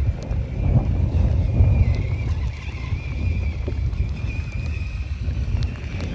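Wind buffeting the microphone, a heavy gusting rumble, over a faint high whine that wavers in pitch from a Traxxas Summit RC crawler's electric motor and gears.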